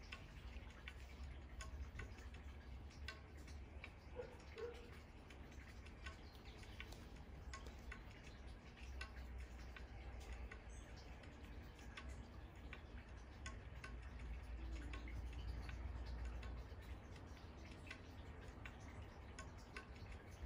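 Quiet outdoor ambience: faint, irregular small ticks over a low, steady rumble.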